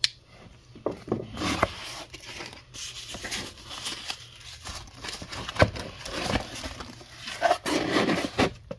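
Cardboard shipping box being opened and handled by hand: irregular rustling and crinkling of cardboard and packing material, with some tearing and a few sharp knocks as the inner box is lifted out.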